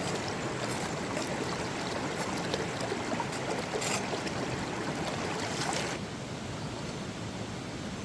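Flowing stream: a steady rush of water that turns quieter and duller about six seconds in.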